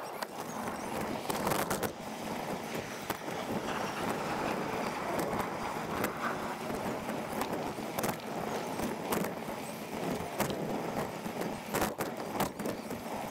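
Street and road noise from a bicycle ride, played fast-forward: a steady rushing noise with frequent sharp clicks and rattles throughout.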